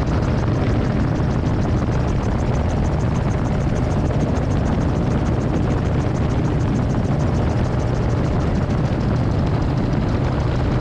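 Titanium gyroplane in cruising flight, heard from the back seat: a steady engine and propeller drone with a fast, even pulse, mixed with rushing air.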